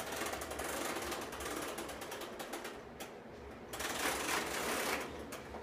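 Plastic push-along baby walker toy clicking and rattling rapidly as its wheels turn. The clicking stops briefly about three seconds in, then starts again.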